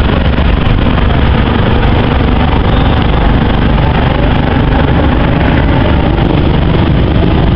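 Engines of a three-aircraft display formation flying overhead: a loud, steady sound without breaks.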